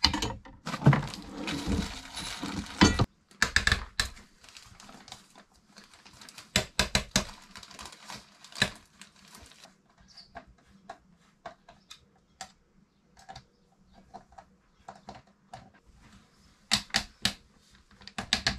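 An aluminium boat hatch frame and its glass being handled and fitted, making irregular light clicks and taps. Plastic sheeting rustles for the first few seconds.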